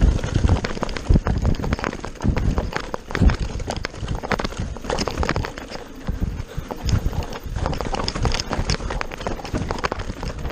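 Enduro mountain bike clattering down a rough dirt trail at speed: a dense run of irregular knocks and rattles from the bike's frame, chain and suspension as the tyres hit roots and bumps.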